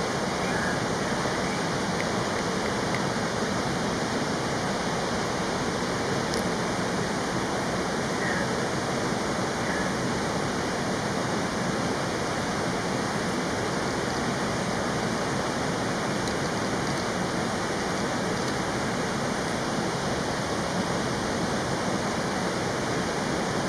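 Steady, even rushing of a fast-flowing stream or waterfall, with a few faint short calls now and then.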